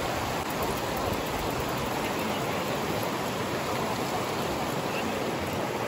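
Steady rushing of flowing river water, an even unbroken wash of noise.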